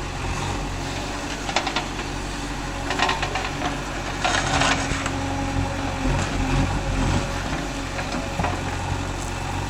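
JCB 3DX backhoe loader's diesel engine running steadily, with bursts of crunching and clattering as soil and stones are scooped and dumped. The loudest burst comes about four and a half seconds in.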